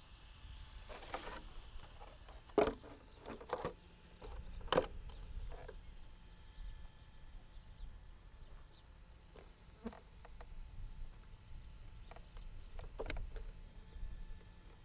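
Footsteps on dry grass with a few sharp knocks, the loudest about two and a half seconds in, over a low rumble of wind on the microphone.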